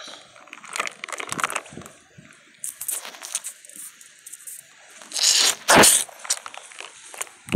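Close handling noise of dry straw rustling and crunching, with plastic toys and tub being moved: irregular crackles, and two louder rubbing bursts about five to six seconds in.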